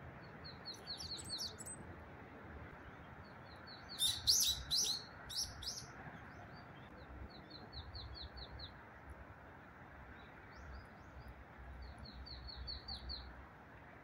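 Small songbirds calling in several quick runs of high, thin chirps, loudest about four seconds in, over a low steady hum of distant road traffic.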